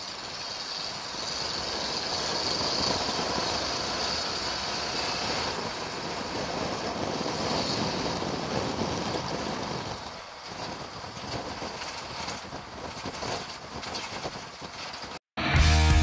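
GAZ-63 truck on the move: a rough, steady vehicle noise that swells over the first few seconds and eases off around the tenth second. Near the end it cuts off abruptly and loud rock music with guitar starts.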